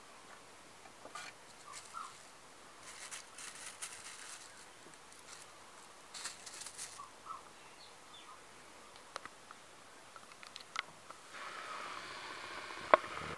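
A kitten scrabbling and pouncing on crumpled plastic sheeting, heard as scattered bursts of crinkly rustling with faint short chirps between them. Near the end the background turns to a steadier hiss and a single sharp click is the loudest sound.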